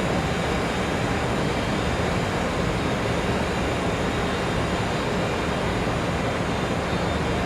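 A freight train pulling out of the station, running past steadily with an even rumble and hum of wagons on the rails.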